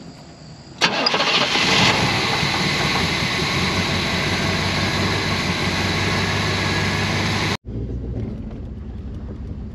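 Chevrolet El Camino's engine, fed by a freshly rebuilt Quadrajet four-barrel carburettor, starting about a second in and then running steadily at a high idle. Near the end the sound breaks off abruptly and the engine is heard again, running more quietly.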